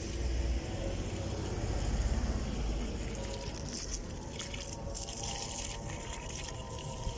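Water from a garden hose pouring and splashing into a planter already pooled with water. A low rumble runs through the first three seconds.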